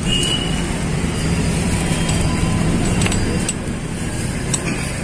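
A motor vehicle engine running steadily, a low hum that eases off after about three and a half seconds. A few sharp metal clicks come from the spanner working on the fork's bottom bolt.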